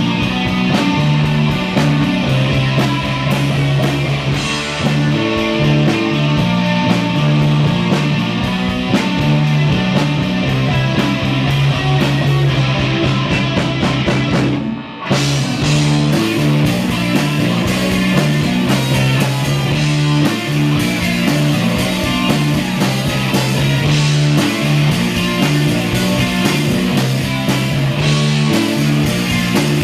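Live rock band playing loud, with guitar, bass and a drum kit driving a steady beat. About halfway through the band stops for a moment, then comes back in.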